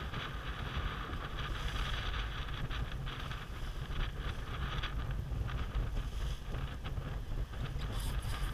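Wind buffeting the microphone over a steady rush of water along the hull of a small sailboat heeling under sail.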